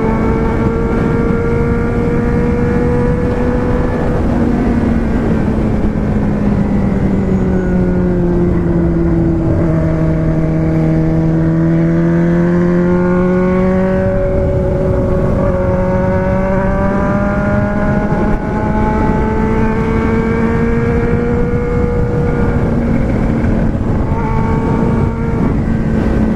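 Four-cylinder engine running steadily. Its pitch sinks slowly, then jumps back up suddenly about halfway through, as at a gear change, and holds there.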